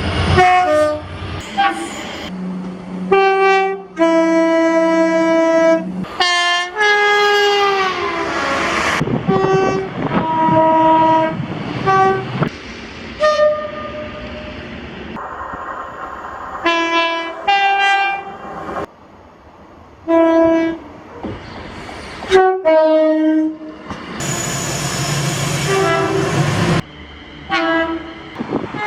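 Train horns sounding in a run of separate recordings joined by abrupt cuts. There are many blasts, some short and some held for a few seconds, several sounding as chords of a few notes, and one falling in pitch as it goes by.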